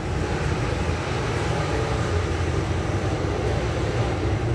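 City bus engine idling, heard from inside the bus while it stands still: a steady low rumble.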